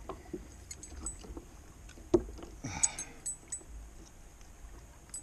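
Small clicks and light metallic jingling as a spinnerbait is worked free from a smallmouth bass's mouth by hand, with one sharp knock about two seconds in.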